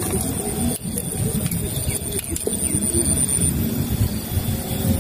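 Wind buffeting the microphone: a low, uneven rumble. A steady high-pitched whine runs beneath it and fades out about three and a half seconds in.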